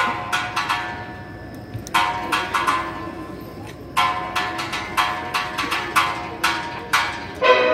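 Steel orchestra of many steel pans playing clusters of struck chords about every two seconds, each left to ring and fade, with the full band coming in louder near the end.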